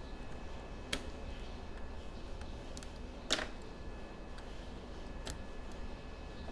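A few sharp clicks and taps from small repair tools and parts being handled on a laptop, the loudest about three seconds in, over a steady low hum.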